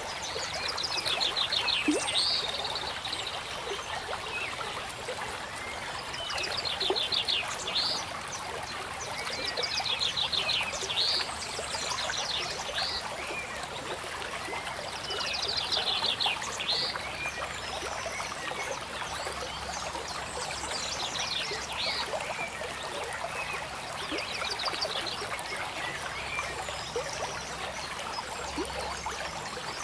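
Steady babbling of a running stream, with a bird repeating a short high trilled phrase every four to five seconds over it.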